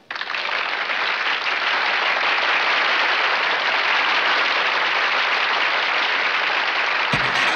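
A seated audience applauding steadily. Near the end a band starts up with bass and drum beats.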